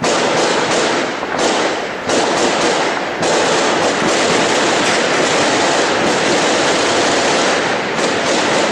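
Heavy automatic gunfire, many weapons firing at once so that the shots merge into a loud, unbroken crackle.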